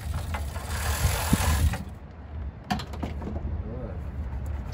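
A steady hiss stops about two seconds in. After it come a few scattered clicks and knocks of hand tools and parts as an engine bay is taken apart.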